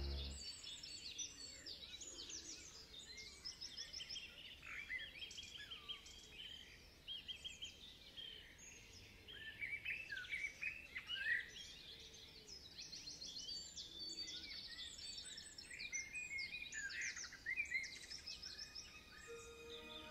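Several songbirds singing at once, with quick chirps, trills and short whistles overlapping. Music comes in near the end.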